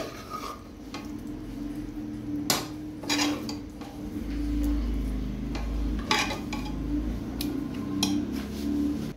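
Metal spoon scraping and clinking against a steel pan as it scoops out chicken-and-potato masala, with a handful of sharp clinks scattered through, over a steady low hum.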